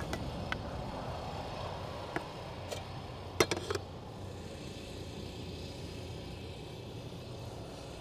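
Wooden spatula tapping and scraping in a steel pot of rice, then a glass lid set on the pot with a short cluster of clinks about three and a half seconds in, over a steady low rumble.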